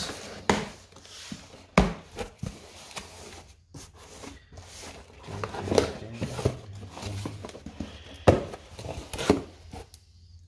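Cardboard shipping box being opened by hand: its flaps are pulled back and folded over, with scattered knocks and thumps and rustling cardboard in between.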